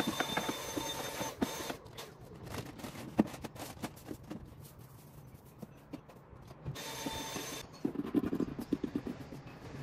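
A small machine running with a steady whine over a hiss, cutting off about two seconds in and running again briefly around seven seconds; clicks and knocks in between.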